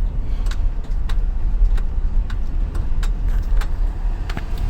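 Tow truck engine running with a steady low rumble, with a sharp tick about every half second or so.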